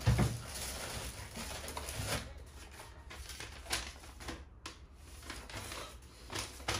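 Paper crinkling and rustling as a folded instruction sheet is opened out by hand, with plastic packaging rustling, and a knock right at the start.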